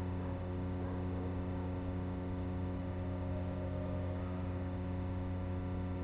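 Steady electrical hum with a stack of even overtones, unchanging in pitch and level.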